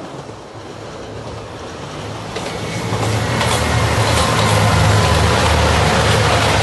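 JR Shikoku 2700-series diesel multiple unit approaching and passing: a diesel engine rumble grows steadily louder and peaks about two-thirds of the way through, with a run of sharp clacks starting about two seconds in.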